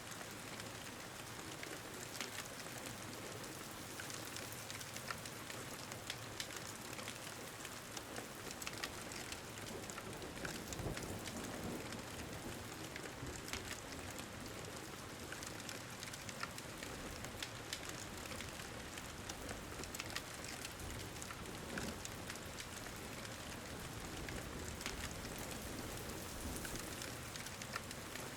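Steady rain ambience, an even hiss, with scattered sharp crackles of a wood fire.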